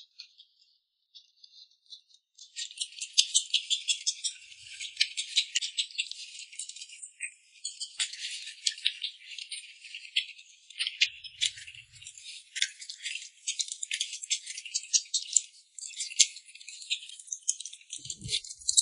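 Close-miked chewing and wet mouth clicks from a man eating dumplings: a rapid, crackly clicking rattle that starts a couple of seconds in and goes on with brief pauses.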